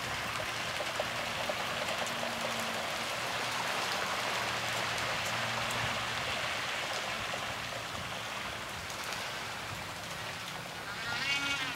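A large flock of coots pattering and splashing across a pond as they flush, a steady rain-like hiss of many feet and wingbeats on the water, with a faint low hum beneath.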